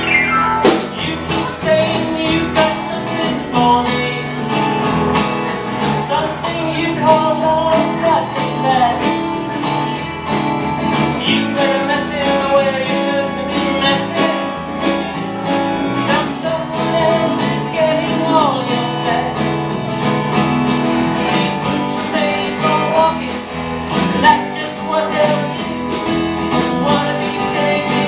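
Live band music led by strummed acoustic guitars, with singing.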